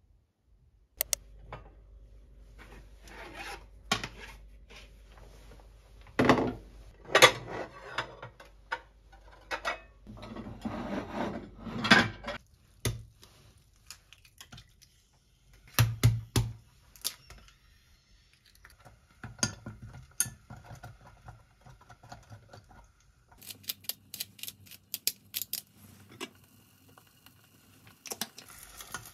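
Kitchen handling sounds from cooking in a small pot: scattered clinks and knocks of dishes, a pot and utensils, with rustling in between. Eggs are cracked into the pot about halfway through.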